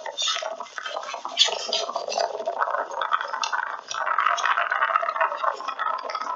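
Indistinct clinks and clatter over a steady background din that grows denser about four seconds in.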